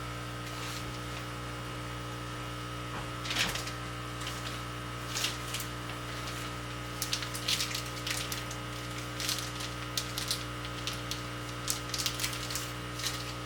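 A steady electrical hum with scattered light clicks and crinkles, a louder one about three and a half seconds in and more frequent ones in the second half.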